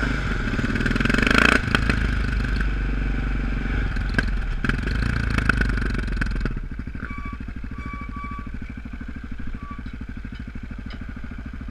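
Single-cylinder four-stroke engine of a KTM LC4 supermoto riding slowly, with a short rise in revs about a second and a half in. From about six and a half seconds on it settles to a steady, evenly pulsing idle.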